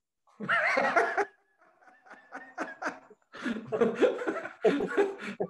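Two men laughing together, starting about half a second in and going on in short repeated bursts.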